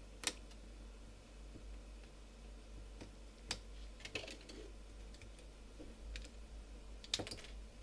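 Scattered small plastic clicks and ticks from a credit card prying at the seam of a BlackBerry Curve 8520's plastic housing, its clipped cover working loose. A sharper click comes just after the start and a few more come near the end.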